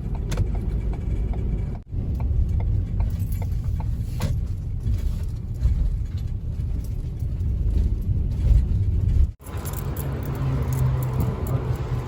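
Low rumble of a car heard from inside as it drives and pulls in. The sound breaks off abruptly twice, and after the second break a steadier low hum carries on.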